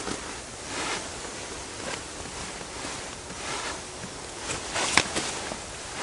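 Quiet rustling of winter clothing and gear as a hand moves the ice-fishing rod, with a sharp click about five seconds in.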